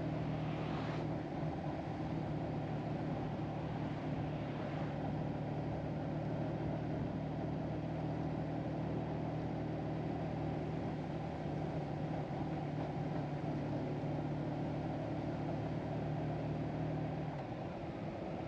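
Motorcycle engine running at a steady cruising speed under wind and road noise, heard from the moving bike. Near the end the engine note drops away as the throttle eases off.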